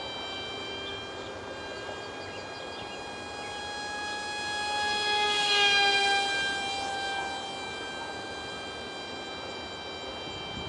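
8 mm direct-drive motor and propeller of an ultra micro RC foam jet whining steadily in flight. It grows louder as the plane passes close about five to six seconds in, then drops a little in pitch as it moves away.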